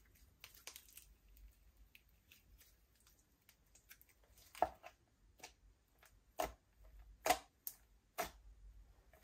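Glossy slime with lipstick mixed in being folded and kneaded by hand, making soft sticky clicks and crackles, with about four louder sharp pops in the second half.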